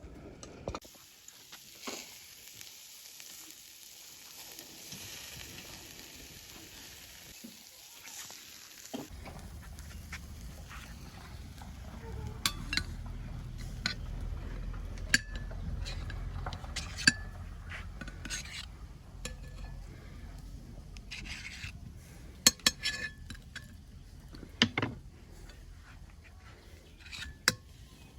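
Meat sizzling: a steady hiss for the first several seconds. From about nine seconds in, clinks and scrapes of kitchen utensils come over a low rumble.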